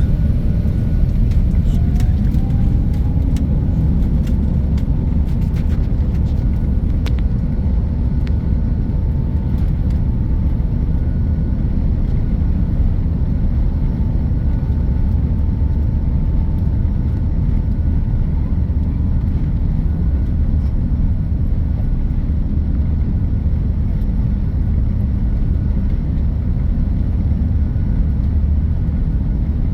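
Airliner cabin noise on takeoff: a steady, loud low rumble of jet engines and airflow. A faint whine rises about two seconds in, holds steady, and fades about two-thirds of the way through. A few light clicks come in the first several seconds.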